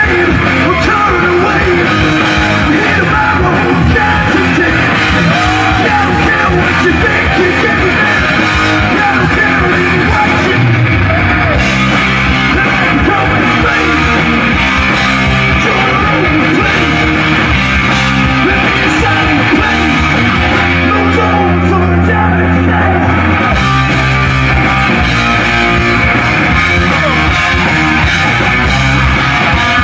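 Live hard-rock band playing loud: distorted electric guitars, bass guitar and drums driving on without a break, with the bass chords changing every second or two.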